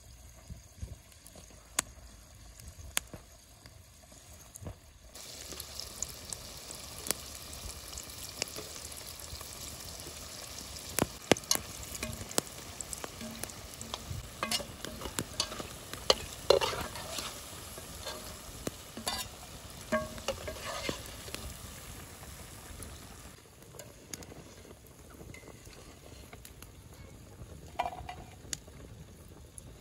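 Piroshki dough buns deep-frying in hot oil in a pot, sizzling steadily from about five seconds in, with clicks and scrapes of a slotted metal spatula turning them against the pot. The sizzling falls away later on, and near the end the metal spatula clinks once against a metal plate.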